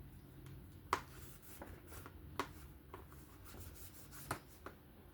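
Light clicks and taps as the small parts of a disassembled folding knife are handled and set down, with three sharper clicks at about one, two and a half and four seconds in.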